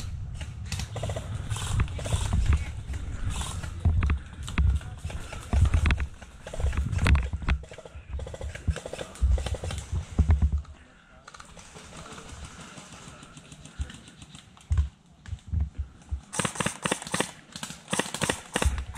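Footsteps and thumps of a person moving over outdoor ground, mixed with sharp clicks. The sounds ease off for a few seconds partway through, then a dense run of rapid clicks comes near the end.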